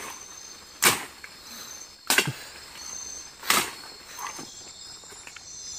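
Three sharp knocks about a second and a half apart, over a steady high chirring of forest insects.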